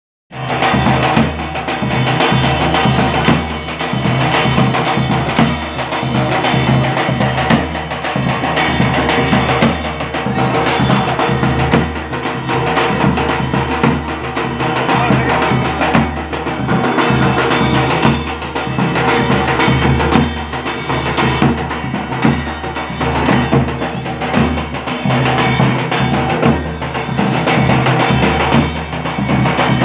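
Music with prominent drums and percussion keeping a steady beat, starting abruptly at the very beginning.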